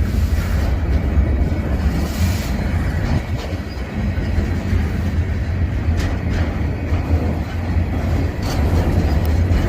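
Freight train rolling past at trackside: a steady, loud, low rumble of cars on the rails, with a few faint clicks.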